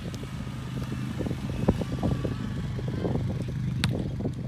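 Beach volleyball rally: sharp slaps of hands striking the ball, one in the middle and one near the end as a player hits it across the net, over a steady low rumble.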